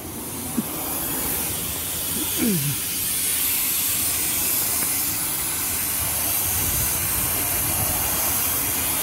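Compressed air hissing steadily from a leaking valve in a truck's air-brake system, growing louder over the first two or three seconds as the leak is approached and then holding even.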